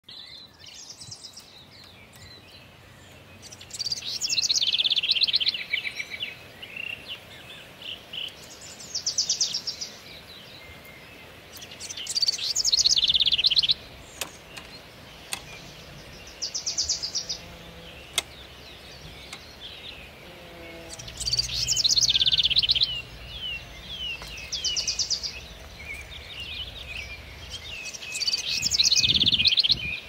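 European goldfinch singing: bursts of fast twittering and trills, each a second or two long, repeating every few seconds.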